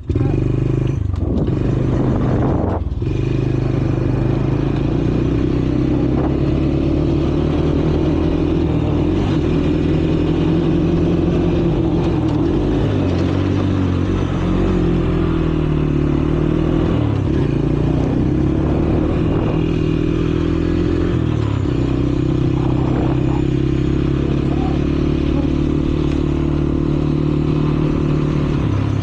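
Small vehicle engine running steadily at low speed, its pitch dipping and rising a few times as it slows and picks up again, with a couple of knocks near the start.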